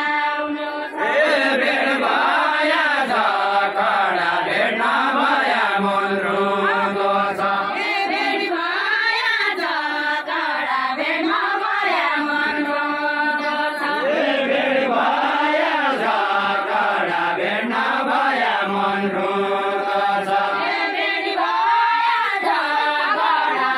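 Several voices singing a Nepali deuda folk song together without instruments, a continuous chanted melody that rises and falls in pitch.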